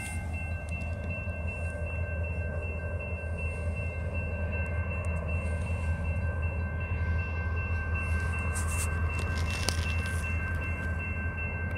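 Diesel locomotive approaching a grade crossing: a steady low engine rumble that grows slowly louder. Three steady high tones sound over it throughout, from the crossing's active warning signals.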